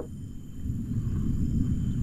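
Gusty low rumble of wind buffeting the microphone as rain moves in, with a faint steady high insect drone behind it.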